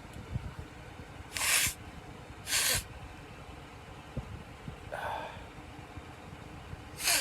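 A man sniffing sharply through his nose, four short hissing sniffs: two loud ones about a second apart, a softer one later and another near the end. He is trying to bring on a sneeze with cayenne pepper burning in his nose.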